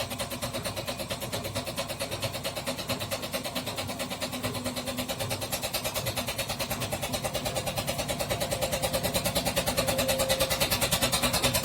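Washing machine on its spin cycle with a fast, even knocking, one knock per drum turn, growing louder as the drum speeds up. The owner traced the knock not to the bearings or shock absorbers but to the drum's spider rattling inside the drum.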